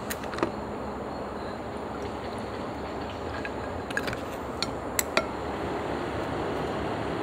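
Metal kitchen tongs clicking and tapping against a plastic tray and a plate as a crab is lifted and set down. There are a couple of sharp clicks near the start and a quick run of clicks about four to five seconds in, over a steady background hiss.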